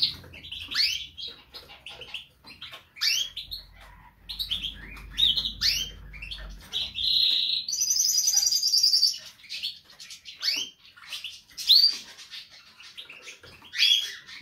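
Caged canaries chirping and calling: many short, high chirps that sweep up and down, with a rapid trill about eight seconds in.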